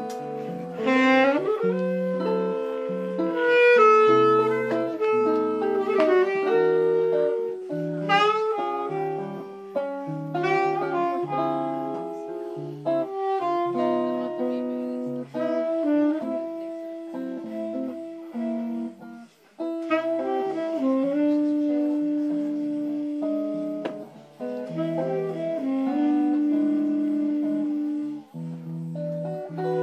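Tenor saxophone playing a bossa nova melody over chords on a Gibson ES-335 semi-hollow electric guitar.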